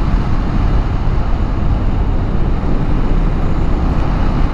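Wind and road noise rushing over the microphone of a KTM 390 Adventure motorcycle at riding speed: a loud, even rush, heaviest in the low end, with no clear engine note showing through.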